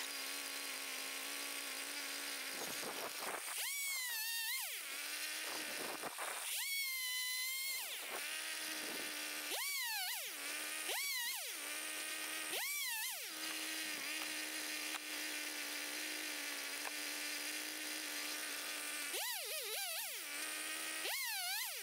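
Gas chainsaw idling between cuts and revving up hard about seven times as it saws through logs, the engine pitch wavering as the chain takes the load in the wood.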